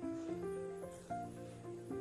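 Background music: a light melody of short held notes that change every quarter to half second over steady low notes.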